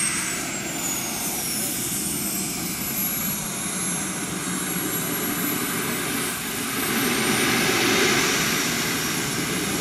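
Small gas turbine of a radio-controlled L-39 Albatros model jet running at taxi power: a high turbine whistle over a steady rush of exhaust. The whistle falls in pitch over the first few seconds, and the sound swells a little near the end.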